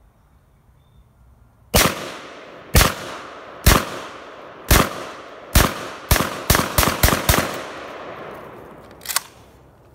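JTS12 semi-automatic 12-gauge shotgun firing ten shots of high-brass birdshot, each trailing off in an echo. The first five come about a second apart, then the last five come quickly at about four a second. A lighter sharp crack follows about nine seconds in.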